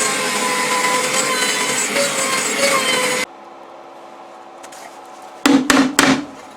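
CNC router spindle cutting acrylic: a loud, steady cutting noise with a whine in it, which stops abruptly about three seconds in. Near the end come three sharp knocks in quick succession.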